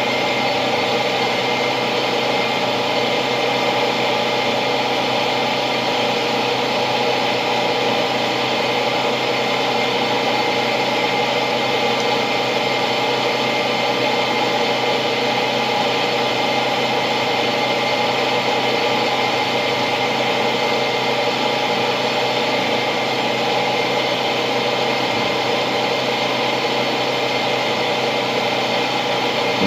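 Steady mechanical hum, like a small motor running, with no change in pitch or level.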